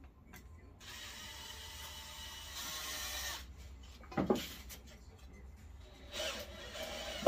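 Cordless drill driving a small screw into a wooden rack: the motor whirs steadily for about two and a half seconds, getting louder near the end of the run. A sharp knock follows, then a second, shorter run of the drill.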